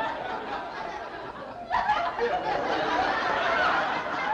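Audience laughter, growing louder about two seconds in.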